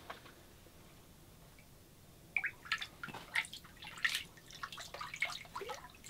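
Water splashing and dripping in a hole in the ice as a large walleye is let go and slips back under. The splashes are brief and irregular, starting about two seconds in and going on to the end.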